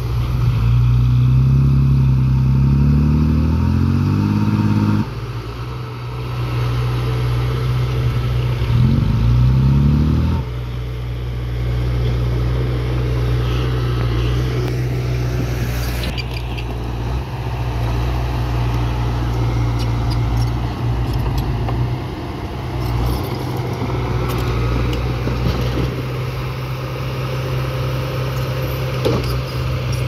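Diesel engines of a dump truck and a Komatsu crawler bulldozer running steadily. The truck's engine revs up twice in the first ten seconds, rising in pitch and cutting off abruptly each time, while the tipper bed is worked.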